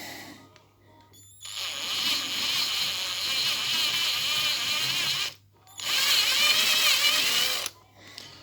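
Electric drill with a step drill bit running in two spells, the first about four seconds, then a short stop and a second of about two seconds, its pitch wavering under load. It is slightly enlarging a diff bore, by less than a millimetre, so a flange bearing will fit.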